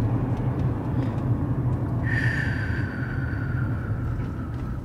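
Steady low rumble of a car driving, heard from inside the cabin. About halfway through, a thin whine comes in and slowly drops in pitch.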